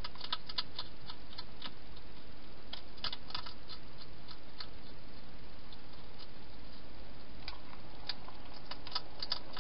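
Wild hedgehog eating inside a clear plastic feeding box: irregular clusters of small, crisp clicks of chewing, over a steady hiss.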